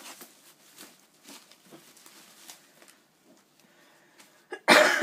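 A woman coughs near the end, a loud cough in two quick bursts. Before it there are only faint small clicks and rustles.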